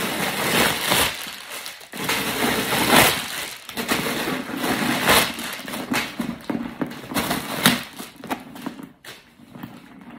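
Louis Vuitton monogram canvas backpack being handled and opened: irregular rustling and scraping of the canvas and lining as hands work inside it, with a few louder scrapes.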